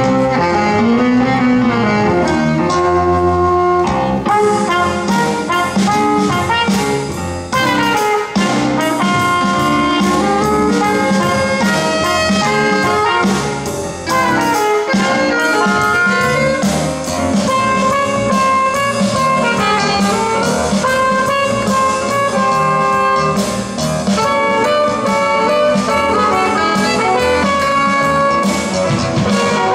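A live band playing an instrumental: trumpet carrying the melody over saxophone, electric bass guitar and a drum kit.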